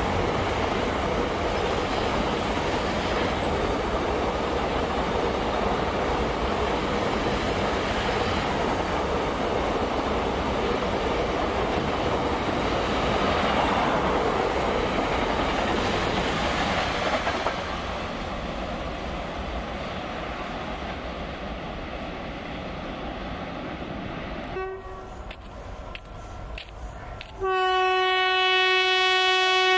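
Container freight train's wagons rolling past close by in a steady rush of wheel and wagon noise. After a cut, an approaching Indian Railways electric locomotive sounds its horn in one long, loud, steady blast near the end.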